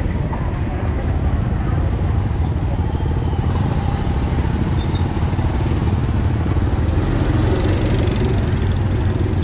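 Street market ambience: steady sound of passing traffic with people's voices in the background, no single sound standing out.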